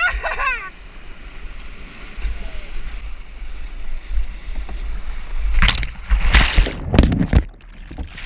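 Rushing white water churning around a kayak. From about five and a half seconds in come loud, heavy splashes as water washes over the camera.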